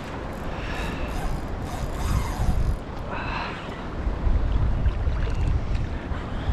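Wind buffeting the microphone: an uneven low rumble that swells and falls, with a steady hiss over it.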